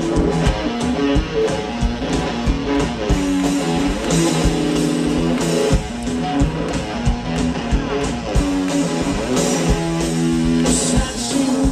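Live rock band playing an electric guitar riff over bass and a steady drum beat, with no singing.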